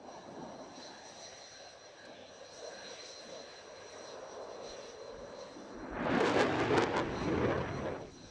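Jet noise from a Belgian Air Force F-16's Pratt & Whitney F100 turbofan: a steady rush with a faint high whine, swelling to a much louder rush for about two seconds near the end, then dropping off suddenly.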